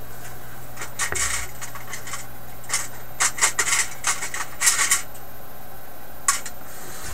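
Small clinks, scrapes and rustles of tools and parts being handled on a workbench, in short scattered bursts, over a steady low hum.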